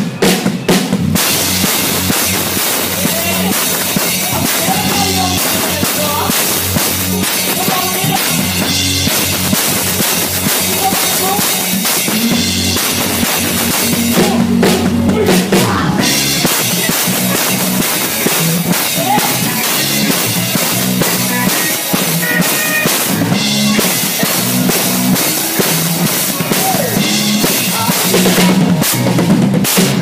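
Drum kit played hard and close up during live band music, with cymbals ringing and kick and snare hits over a moving bass line.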